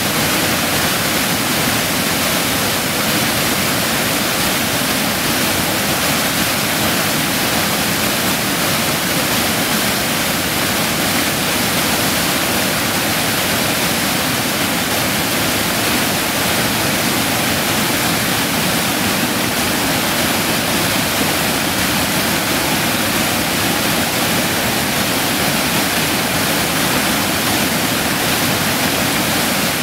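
Waterfall pouring over rock ledges: a loud, steady rush of white water that does not let up.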